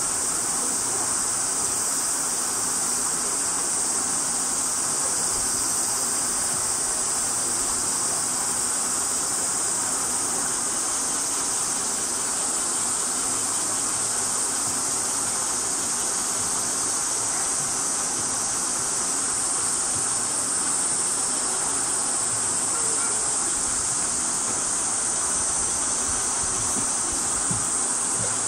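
Steady, high-pitched buzzing chorus of insects over an even lower background hiss.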